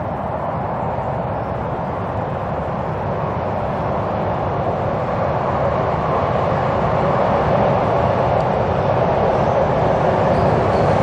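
Container freight train rolling across a steel truss railway bridge: a steady rumble and rush of wheels on rail that grows slowly louder as it approaches.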